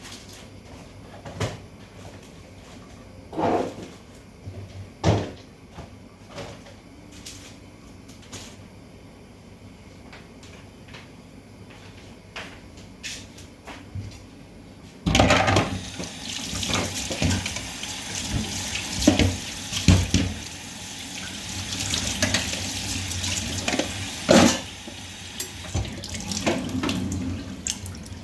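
Scattered knocks and clatter, then a kitchen tap turned on about halfway through, water running into the sink with more knocks and clatter over it.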